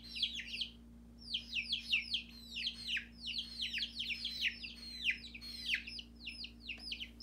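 Baby chicks peeping: a rapid, overlapping run of high, short peeps that fall in pitch, several birds at once, with a brief lull about a second in.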